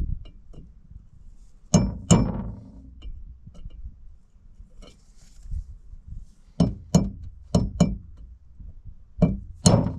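Hammer blows on a steel tool set against a John Deere 9430T's variable speed fan drive hub, working a stuck part loose. They come as sharp metallic clinks with a short ring: two about two seconds in, a quick run of four in the middle and two more near the end.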